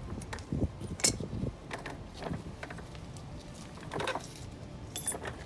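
Light metallic clicks and clinks as drum-brake springs and hardware are handled, with a sharp click about a second in and a short ringing clink near the end.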